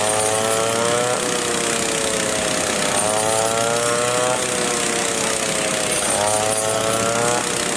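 Small engine running hard, its pitch climbing quickly and then sinking slowly again about every three seconds.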